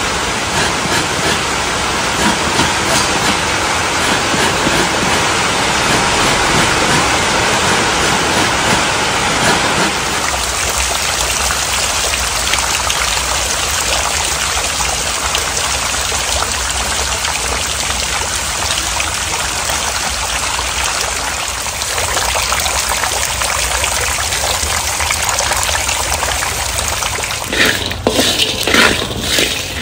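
Heavy rain pouring steadily. For the first ten seconds or so it is mixed with the rasp of coconut flesh being scraped on a hand grater. Near the end, peanuts rattle and click as they are stirred in a dry wok.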